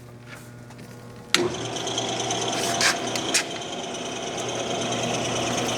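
Clausing 1030 lathe at low speed: a faint hum at first, then about a second and a half in a sharp clack as it is engaged, and the lathe runs with a steady mechanical whirr of its gearing, with a couple more clicks.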